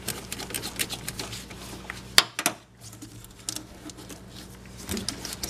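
Ratcheting wrench clicking as it turns the 10 mm nut on a car battery's negative terminal: a rapid run of small clicks for about two seconds, then one louder metallic click, with scattered quieter clicks after.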